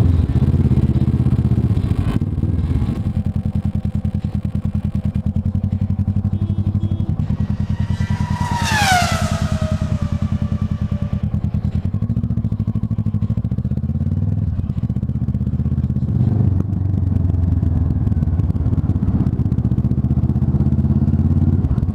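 Kawasaki ER-6n's parallel-twin engine running under way in traffic, its note rising and dropping several times with throttle and gear changes. About eight seconds in, a whistle-like tone glides steadily downward for about three seconds.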